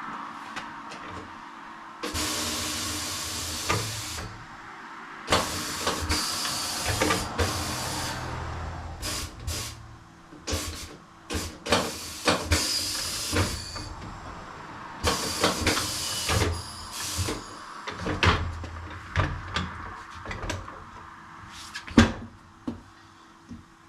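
Motorcycle tire-changing machine at work: compressed air hisses in several bursts of one to two seconds, between metal clanks and knocks, with one loud knock a couple of seconds before the end.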